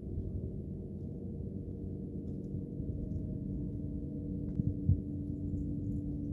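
Steady low rumble of a departing passenger train, with a constant hum running through it and a couple of dull thumps near the end.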